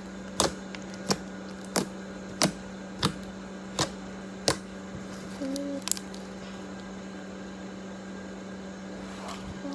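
Homemade slime being squeezed and played with, giving sharp popping clicks about every two-thirds of a second that stop about four and a half seconds in, over a steady low hum.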